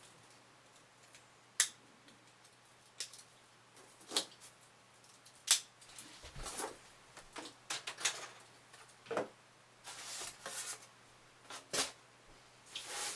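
Unpacking handling noise: a plastic packing strap being cut and the polystyrene packaging top pulled off the speakers, heard as scattered sharp clicks and snaps with short scrapes and rustles in between.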